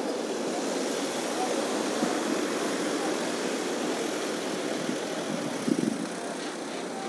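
Steady outdoor background hum, an even noise with no rhythm or clear tone, with a short bump a little before the end.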